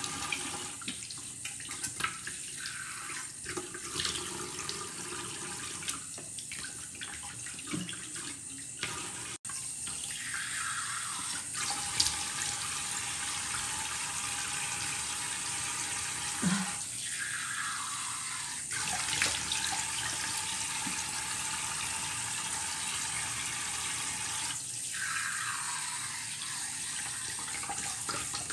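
Water running steadily from a tap into a sink while hands scoop and splash it onto the face, rinsing off a face mask. The sound drops out for an instant about nine seconds in.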